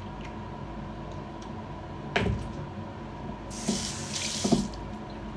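A sharp knock about two seconds in, then a bathroom sink tap runs for about a second, splashing into the basin as hands are wetted for face washing.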